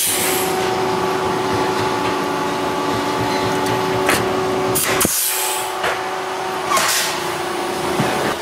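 Pneumatic blind-rivet puller setting aluminium pulled rivets in a wing rib: several sharp snaps as the mandrels break, some followed by a short hiss of air, over a steady hum.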